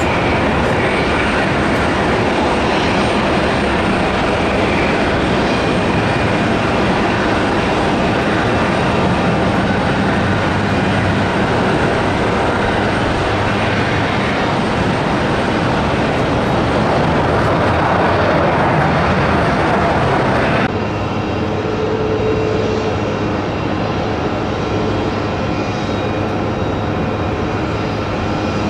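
Embraer ERJ-140LR regional jet's twin turbofans during its landing, a loud, dense rush of engine noise. About twenty seconds in, the sound cuts abruptly to a quieter, steadier jet engine sound of a McDonnell Douglas MD-11F freighter coming in to land.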